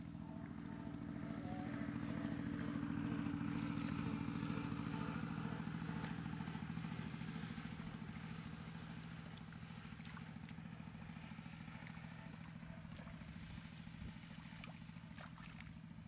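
A small engine running steadily in the background, growing louder for a few seconds and then easing off, with faint clicks and slaps of hands working in wet mud.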